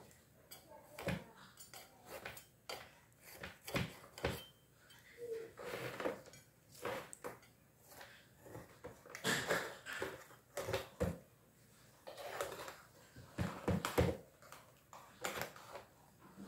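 Metal cake server scraping and clinking against an aluminium baking tray as a cake is cut into pieces and a slice is pried loose: a string of irregular scrapes and knocks, loudest a little past the middle and near the end.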